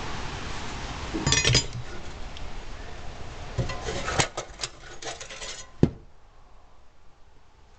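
Small loose metal parts and hardware clinking and rattling as they are handled and set down, in two bunches of clicks with a single sharp clink near the end, over a steady hiss that stops about six seconds in.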